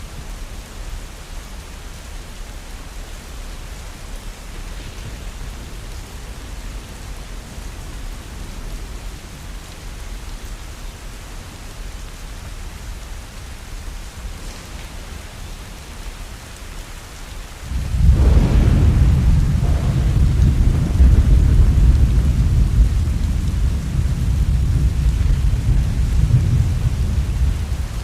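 Steady rain, then about two-thirds of the way through a sudden clap of thunder that rumbles on loudly for about ten seconds.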